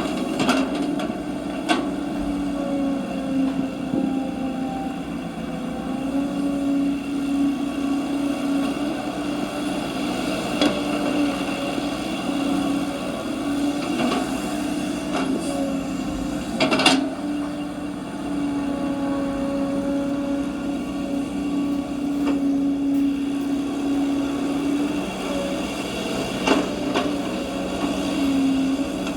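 Small electric motors of radio-controlled model construction machines whining steadily, the pitch wavering as they work. A few sharp clicks and knocks cut through, the loudest about two-thirds of the way in.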